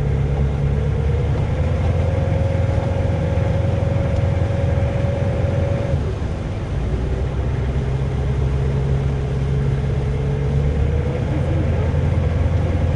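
Heavy truck engine running under load with a whine that climbs slowly, drops off about six seconds in, then climbs again as it picks up.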